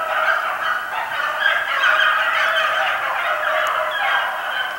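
Several dogs yelping together in a loud, continuous excited chorus, with a few falling howls near the end.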